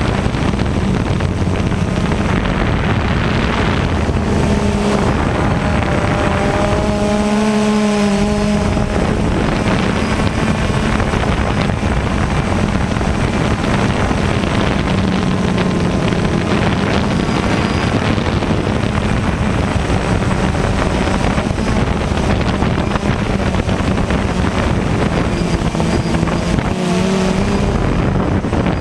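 DJI Phantom 1 quadcopter's brushless motors and propellers running steadily in flight, picked up up close by the camera mounted on the drone. The buzz holds a steady low pitch, and some higher whining tones join it for a few seconds about seven seconds in.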